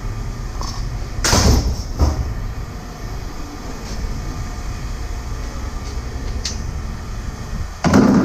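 A door banging shut about a second in, with a smaller knock just after and another bang near the end, over a steady low rumble.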